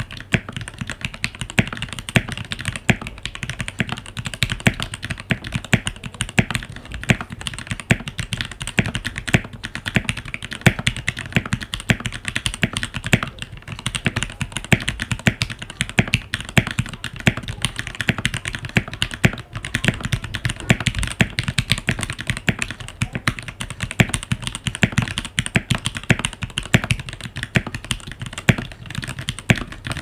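Vortexseries VX5 mechanical keyboard fitted with Gateron Yellow linear switches being typed on fast and continuously: a dense, steady clatter of keystrokes that starts abruptly and stops near the end.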